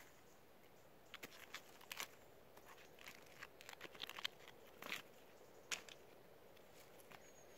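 Faint, irregular crunches and crackles: many short, sharp clicks scattered unevenly, clustered most thickly in the middle.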